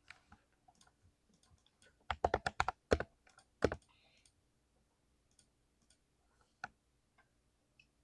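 Mechanical keyboard with linear Cherry MX Speed Silver switches being typed on. Scattered soft keystrokes, then a quick run of loud key presses about two seconds in that lasts under two seconds, then a few light taps with one sharper press near the end.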